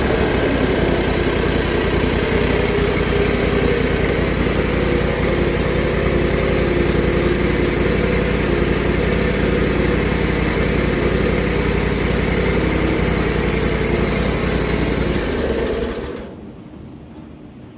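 Portable bandsaw mill's gas engine running steadily while sawing a siding board from a cant, then dying away about sixteen seconds in.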